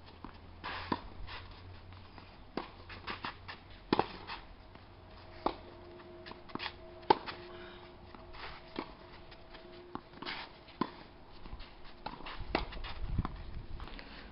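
Tennis balls being struck by racquets and bouncing on a clay court: sharp pops at irregular intervals, a few seconds apart, with some quicker clusters.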